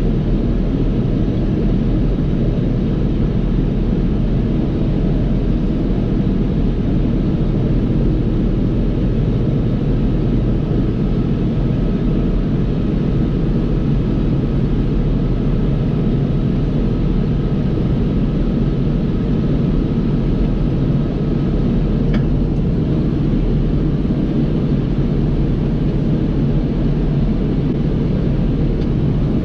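John Deere 5075E tractor's diesel engine and the Krone KR250B round baler it pulls, running together at a steady pace while baling hay: a constant, even drone. A faint high tone runs through the middle and ends in a short click.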